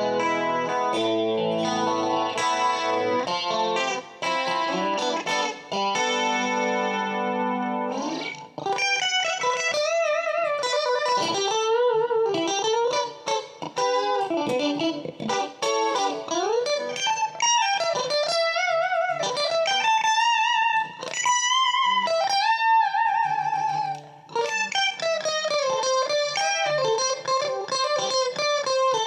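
Westone GT electric guitar, built by Matsumoku in 1985, played with a clean tone. It rings out sustained chords, then about eight seconds in switches to a single-note lead line with string bends and wide vibrato.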